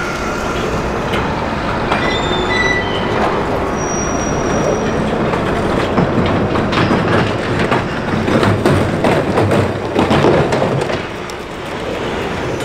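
Hyundai HX480L crawler excavator travelling on its steel tracks: clanking of track links with short squeaks, over a steady low rumble. The clanking grows dense and loud in the second half, then eases near the end.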